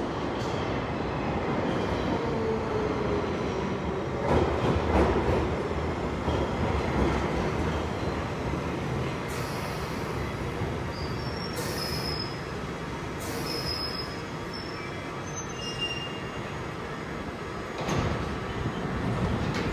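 London Underground 1973 Stock tube train running into a station platform and braking to a stop: steady rumbling with a falling whine in the first few seconds, heavier knocks about four seconds in, and thin high-pitched squeals about halfway through.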